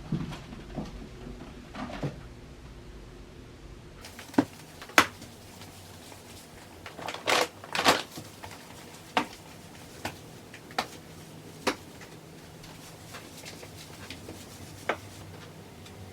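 Irregular sharp knocks and clatters in a small room, about a dozen in all, the loudest clustered near the middle, over a low hum that stops about four seconds in.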